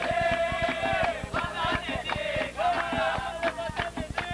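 Chant-like singing with long held notes over a quick, steady percussion beat of about four strikes a second.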